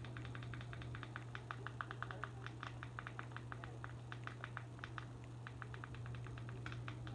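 Rapid plastic button clicks from a Fire TV Stick remote's circular navigation ring and centre select button, pressed several times a second to step across an on-screen keyboard, with a short lull about five seconds in. A steady low hum runs underneath.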